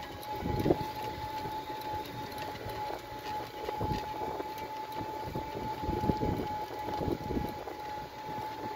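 Outdoor ambience: an irregular low rumble, typical of wind buffeting the microphone, with a steady high-pitched tone running underneath throughout.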